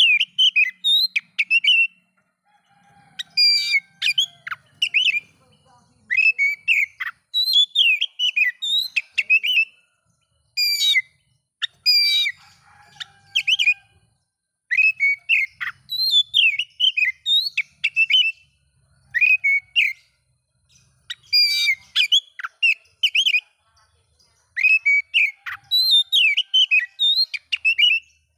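Oriental magpie-robin singing: bursts of loud, varied whistles and sharp chirps, each phrase a quick run of notes, with short pauses between phrases.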